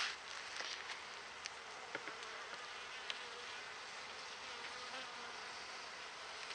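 Honeybees buzzing steadily around an opened hive that has just been smoked, with a few light clicks and one brief louder noise right at the start.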